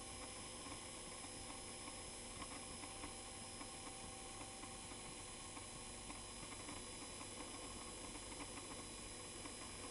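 A shop-vac blower running steadily, blowing air into a charcoal forge, a constant hiss with a faint motor whine and light ticks.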